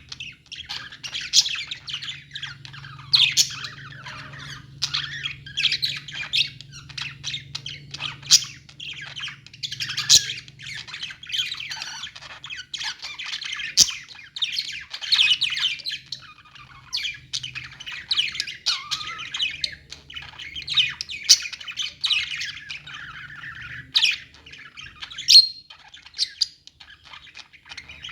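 A flock of caged budgerigars chirping and squawking all at once, a constant overlapping chatter of short calls with louder sharp squawks every second or two, over a steady low hum.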